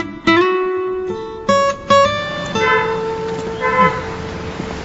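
Soundtrack music: a slow melody of single plucked guitar notes, each one ringing on as the next starts, about six notes spread across a few seconds.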